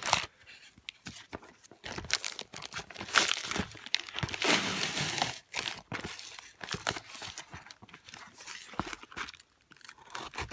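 Shipping package being opened by hand: packing tape and cardboard tearing and packaging crinkling in irregular rustles and scrapes, with one longer tearing rustle about halfway through.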